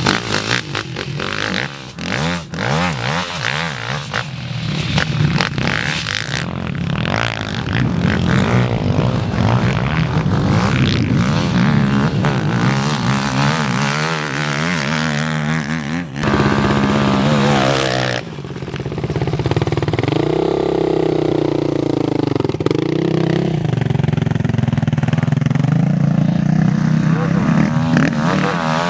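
Sport quad engines revving hard on a sand track, the pitch climbing and dropping as the riders work the throttle and shift, with the sound changing suddenly a couple of times.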